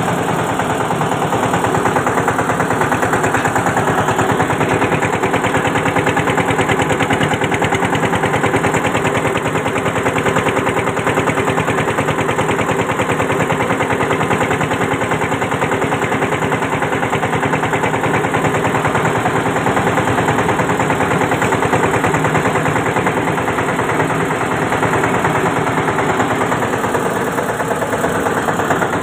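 Eicher tractor's diesel engine running hard as the tractor drives fast along a road, a loud, steady, rapid chugging beat with no change in pace.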